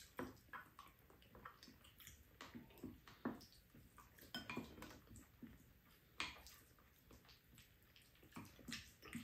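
Faint, scattered clinks of a spoon and metal chopsticks against bowls, mixed with small eating noises, a few every couple of seconds.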